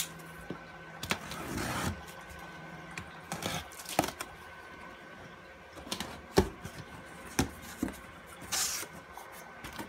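A cardboard shipping box being handled and opened: scattered knocks on the cardboard, with a few short scraping and rustling sounds as the flaps are worked. A faint steady tone runs underneath.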